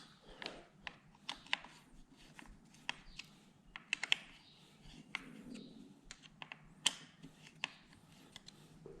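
Irregular light clicks and taps of small metal parts and hand tools being handled while a handguard clamp is fitted to a motorcycle handlebar.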